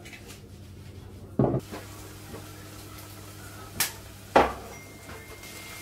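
Kitchen handling knocks over a faint steady low hum: a dull thump about a second and a half in, then a short click and a sharper knock a little past the middle, like a cupboard door or a bottle being set down on the counter.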